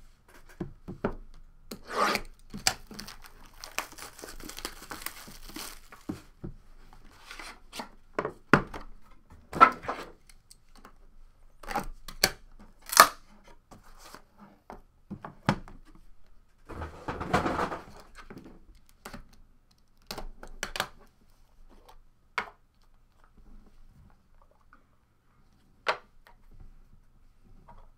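Plastic shrink-wrap being torn and crinkled off a cardboard trading-card box, then the box opened and the cards handled, with scattered taps and knocks. The longest tearing rustle comes a few seconds in.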